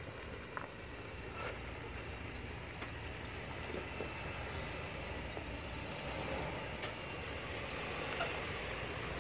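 Square-body Chevrolet K5 Blazer's engine running at low revs as the truck crawls up a rocky dirt trail, getting slowly louder as it approaches, with a few faint clicks along the way.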